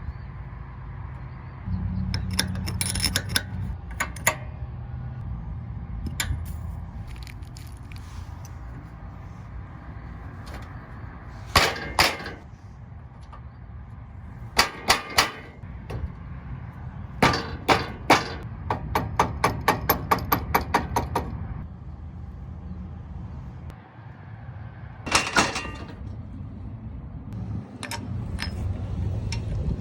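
Hand work on a stuck, squeaky wheel: scattered sharp metallic clicks and knocks, with a fast run of even ticks of about six a second partway through, over a low steady rumble.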